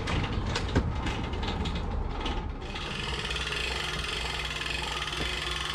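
Boat trailer's hand winch ratcheting in rapid clicks as the boat is hauled up onto the trailer rollers, for about two and a half seconds. It then gives way to a steady hiss with a low hum.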